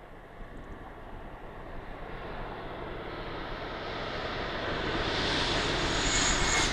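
E8 series Shinkansen train running toward and past at speed. Its noise grows steadily louder and takes on a high hiss as it goes by in the last couple of seconds.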